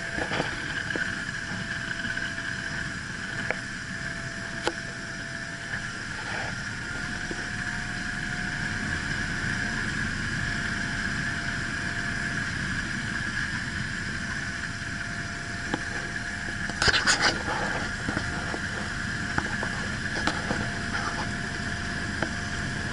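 Light aircraft's engine and propeller droning steadily through a glacier landing, with a short cluster of sharp knocks about seventeen seconds in.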